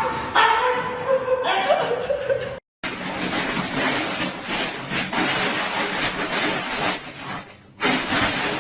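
A person chuckling and laughing, cut off abruptly after about two and a half seconds, followed by a steady noisy hiss-like haze with no clear source.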